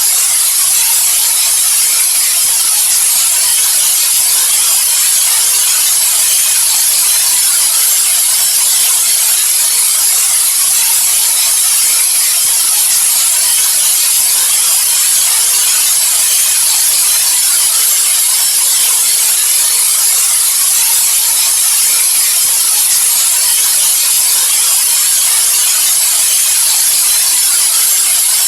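White noise: a loud, perfectly steady hiss, brightest in the high treble and thin in the bass, with no change or break.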